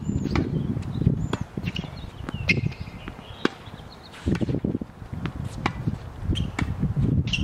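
Tennis ball struck on racket strings in a volley rally: a series of sharp pops, roughly one every second or so, the loudest about a second in.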